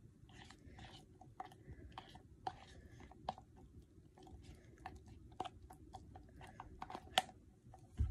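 Plastic spoon stirring thick hair grease in a plastic jar: faint, irregular sticky clicks and scrapes, with a sharper click about seven seconds in.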